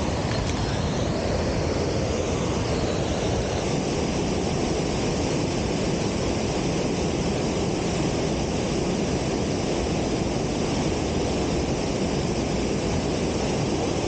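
Waterfall pouring into its plunge pool: a steady, unbroken rush of water.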